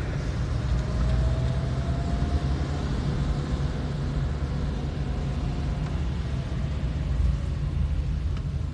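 Car engine and road noise heard from inside the cabin while driving slowly: a steady low rumble, with a faint whine rising gently during the first few seconds.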